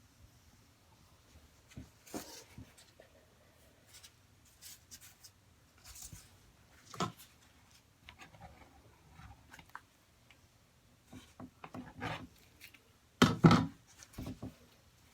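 Scattered short rubbing and scraping sounds with light knocks, in a small echoing room. A louder cluster of scraping knocks comes near the end.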